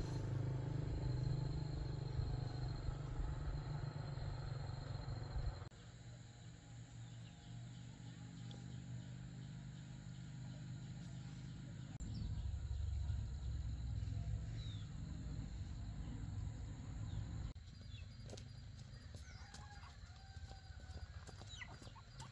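Chickens calling over a low steady rumble, the sound shifting abruptly several times.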